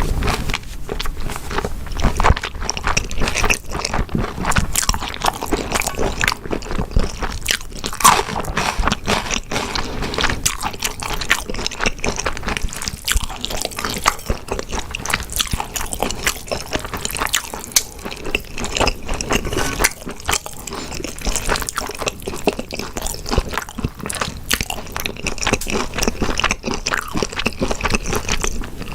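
A person eating right at a close microphone: continuous chewing and biting, a dense run of short, sharp mouth clicks and smacks.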